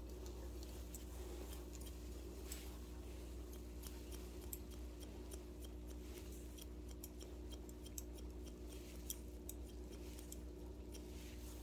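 Barber's long shears snipping hair in quick, irregular clicks over a steady low hum.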